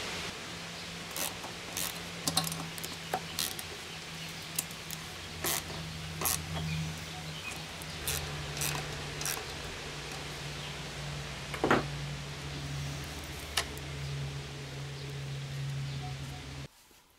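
Scattered light metal clicks and taps from the ignition coil of a small Briggs & Stratton engine being set against the flywheel with a .010" gap card. A steady low hum runs underneath and stops abruptly near the end.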